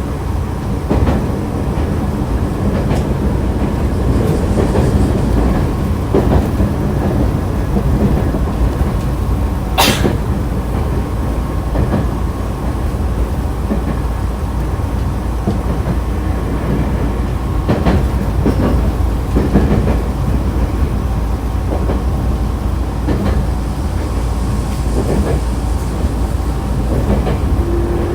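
Nankai Kada Line train set 2036F running between stations, heard inside the car: a steady low rumble of wheels on rail with scattered clicks over rail joints. There is one sharp click about ten seconds in and a faint rising tone near the end.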